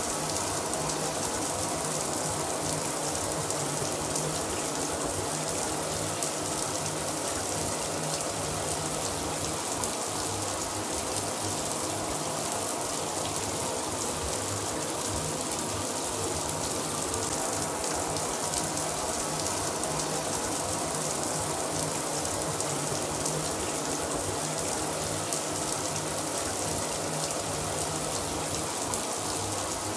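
Shower running steadily, water spraying and splashing in an even hiss.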